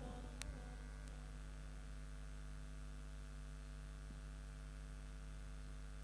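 Steady electrical mains hum from the microphone and sound system, with a single faint click about half a second in.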